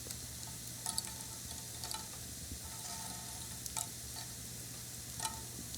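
Small fire crackling: scattered sharp pops and ticks, five or six in a few seconds, over a soft sizzling hiss.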